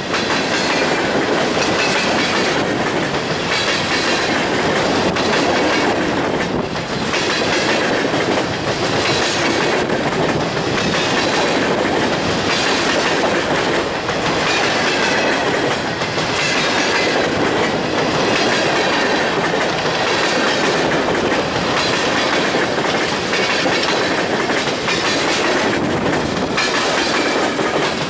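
Freight train's covered hopper cars rolling past at close range, steel wheels clacking over the rail joints. The sound swells about every two seconds as each car's wheel trucks go by.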